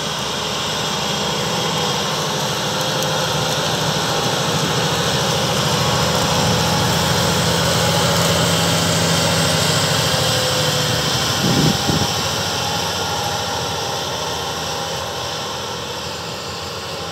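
Fendt 939 Vario tractor's six-cylinder diesel engine running under load while pulling a cultivator through the soil, getting louder as it passes close and then fading as it pulls away. A short thump about two-thirds of the way through.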